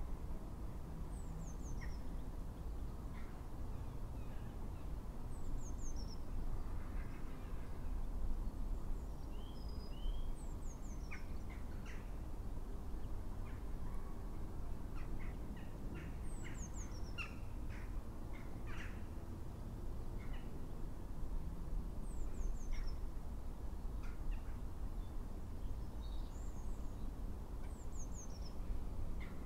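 Wild birds calling and chirping, with a short high falling chirp repeating every few seconds, over a steady low background noise.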